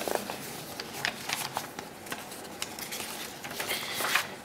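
Scattered small clicks and rustles over quiet room tone in a large hall.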